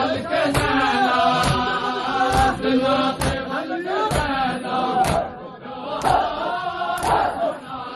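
A group of men chanting a noha in unison, with sharp hand-on-chest slaps of matam (ritual chest-beating) landing about once a second.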